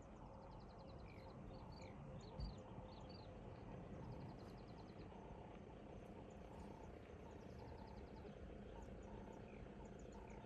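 Faint bush ambience: small birds calling in short rising chirps and quick ticking trills, over a low steady hum. There is a single soft bump about two and a half seconds in.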